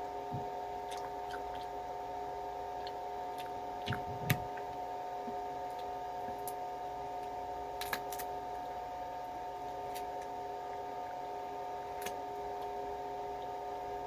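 Snow crab leg shells cracking and clicking as they are broken open and picked at: a few sharp cracks, the loudest two close together about four seconds in, others near eight and twelve seconds, over a steady electrical room hum.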